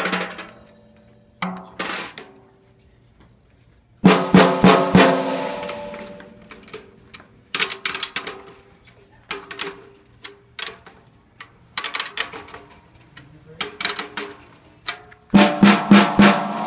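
Snare drum being hit with a drumstick while its top head is being tuned up. It plays a few single strokes, then a loud group of strokes a few seconds in, lighter scattered taps through the middle and another loud group near the end, each hit ringing on with a pitched tone.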